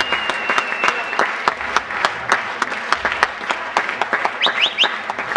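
Audience applauding, many hands clapping. A single held whistle sounds over it in the first second, and three quick rising whistles come about four and a half seconds in.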